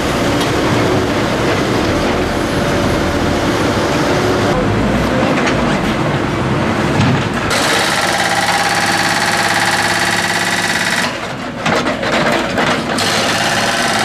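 Hidromek backhoe loader's diesel engine running under load. From about halfway, the hydraulic breaker on its arm is hammering up the asphalt road surface, with a short break near the end.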